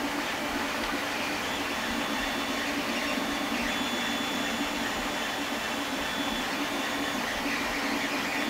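Steady machine hum with a constant low drone, unchanging throughout.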